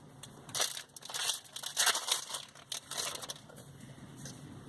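Foil card packs crinkling and rustling as they are handled and opened, with cards shuffled and flicked through in between, in irregular crackly bursts.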